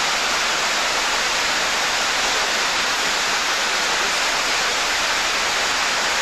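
Steady rush of white water pouring down a stepped weir cascade, an even, unbroken noise.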